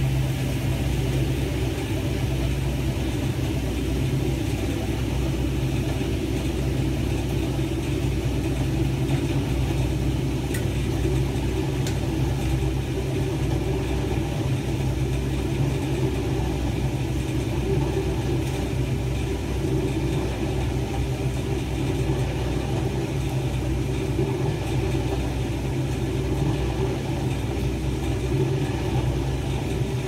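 1976 Hoover 620 top-loading washing machine running with a medium load, a steady motor-and-drive hum as the laundry moves in the tub.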